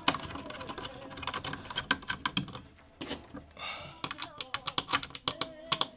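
Irregular small clicks and taps of metal and plastic parts being handled as threaded standoffs for a CPU liquid cooler's mounting bracket are screwed in by hand on a motherboard.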